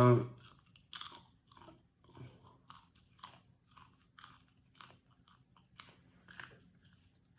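A person chewing popcorn close to the microphone: a run of short crunches, about two a second.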